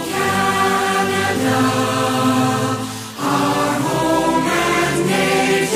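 A choir singing long held chords, changing every second or two, with a brief dip about three seconds in.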